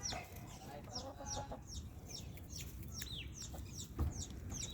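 Baby chicks peeping steadily: short, high, falling peeps, several a second. A grown chicken clucks lower about a second in, and there is a short knock about four seconds in.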